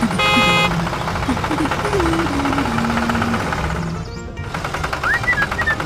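Background music with a stepping bass melody over a fast, busy rattling rhythm. A short bright tone sounds near the start, and whistle-like glides come in near the end.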